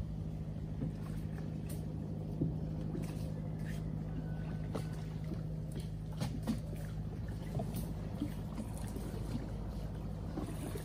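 Small boat engine idling steadily, with scattered light clicks and rustles from tree branches being pulled.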